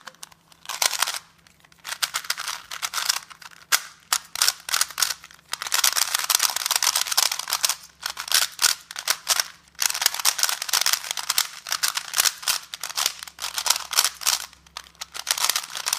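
Armadillo Cube twisty puzzle, a thin-plastic Rubik's Cube-style puzzle with a basic mechanism, being turned rapidly by hand: continuous clicking and clacking of its plastic pieces as the layers rotate, in quick flurries with short pauses.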